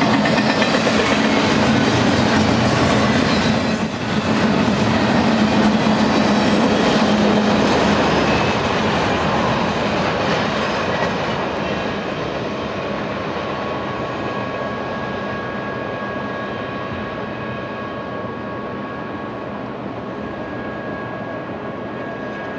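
Double-stack intermodal freight cars rolling past on steel wheels, a dense clattering rumble that fades steadily after about eight seconds as the end of the train draws away. A thin, steady wheel squeal is heard through the fade.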